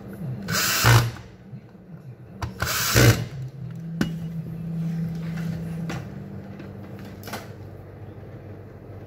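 Cordless drill-driver spinning a bit in two short runs about two seconds apart, each ending in a sharp peak. A click follows, then a steady low hum for about two seconds and one more brief buzz near the end.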